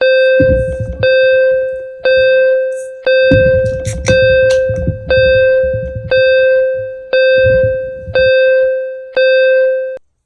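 A single chime-like note repeating about once a second, ten times, each strike ringing and dying away before the next.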